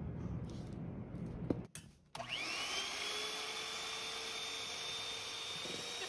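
A low hum cuts off, and about two seconds in an electric hand mixer starts up. Its whine rises quickly, then settles into a steady high whine as the beaters whip egg whites into meringue in a stainless steel bowl.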